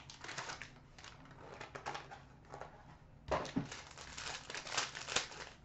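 Plastic trading-card pack wrapper crinkling and tearing as it is opened by hand, a run of soft crackles with a light knock about three seconds in, after which the crinkling is denser.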